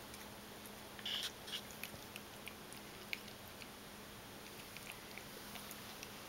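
Faint scattered clicks and ticks from a five-week-old Persian kitten on a tile floor at a plate of wet cat food, with a short brighter burst about a second in and the clicks thinning out later.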